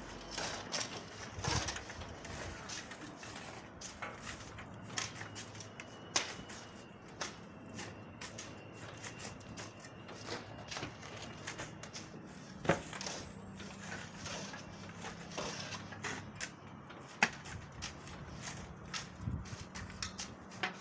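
Irregular light clicks, taps and scraping sounds of hands-on work, with a few sharper knocks, the loudest about two-thirds of the way through, over a faint steady hum.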